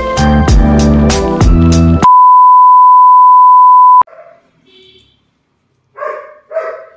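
Upbeat intro music for about two seconds, then a loud steady 1 kHz test-tone beep, the kind that goes with TV colour bars, held for about two seconds and cut off sharply. Near the end come two short barks from small dogs.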